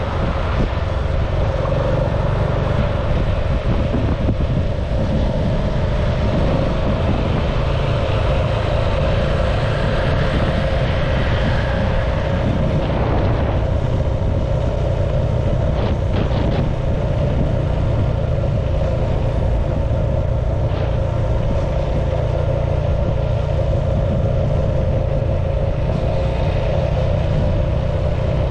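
Motorcycle engine running at a steady cruising speed, with wind buffeting the microphone as it rides: a constant rumble and hum with no change in pace.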